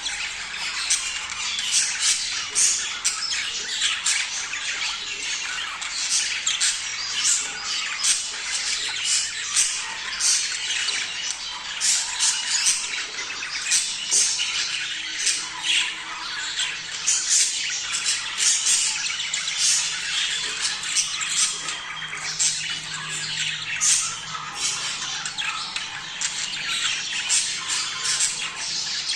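A flock of budgerigars chattering and squawking nonstop, many short, sharp calls overlapping several times a second: the breeding chatter of budgies in mating condition.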